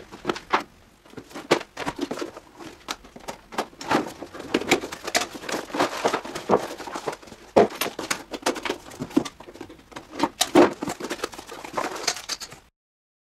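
Cardboard and plastic packaging being handled: irregular rustling, scraping and light knocks as box inserts and wrapped parts are pulled out and set on a table. The sound cuts off abruptly near the end.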